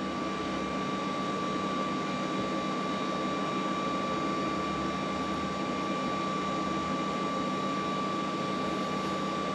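A steady mechanical hum with a thin, constant high whine above it, unchanging throughout, with no distinct knocks or clicks from the hand work.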